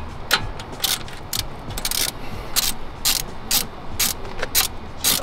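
Hand ratchet wrench worked back and forth, a short rattle of ratchet clicks about twice a second, as a wheel's lug bolt is unscrewed from the hub.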